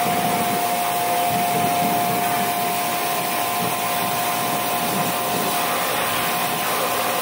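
MHLD 358C 1800 W electric pressure washer running, its high-pressure water jet spraying against the metal fins and copper coil of an air conditioner: a steady, even hiss with a steady whine.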